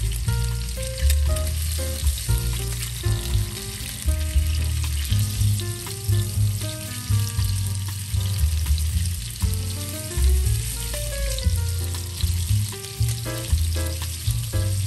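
Salmon fillets sizzling as they fry in hot oil in a pan, a steady hiss, under background music with a prominent bass line.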